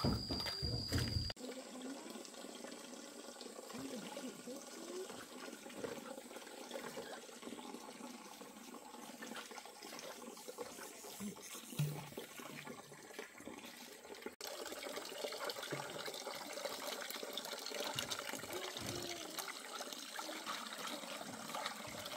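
Water running and splashing, a steady hiss that changes abruptly about a second in and again a little past halfway.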